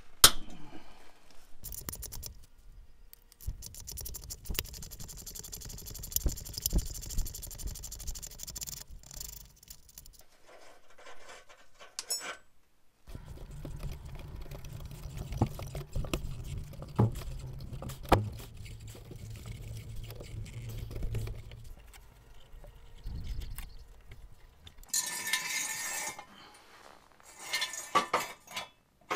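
Hand tools and metal parts working a rusted exhaust clamp and pipes under a car: scattered metallic clinks, clicks and scrapes, in separate stretches that break off abruptly. A sharp metallic click just after the start is the loudest.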